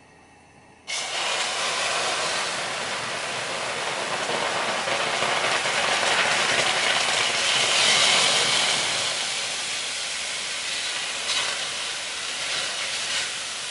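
Hot water hitting a saucepan of dry-toasted arborio rice: a sudden, violent hiss and sizzle of water flashing to steam, starting about a second in, swelling, then easing to a steadier sizzle.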